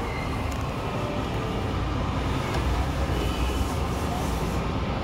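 Steady low rumble of motor vehicles running nearby, with a few faint clicks as a long socket wrench is turned on a bolt on the engine's crankcase cover.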